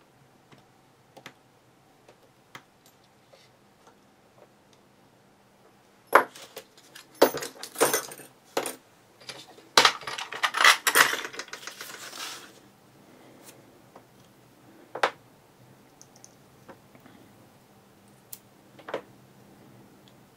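Light clicks of a brass lock cylinder and picks being handled, then about six seconds of loud metallic clattering and rattling as small metal tools are picked up, dropped and sorted through, then a few more scattered clicks.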